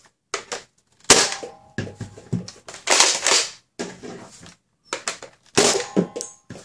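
A red Nerf Rival Kronos, a spring-powered foam-ball blaster, is primed and fired through a chronograph. It makes a string of sharp clacks and pops, the loudest about a second in, about three seconds in and near the end.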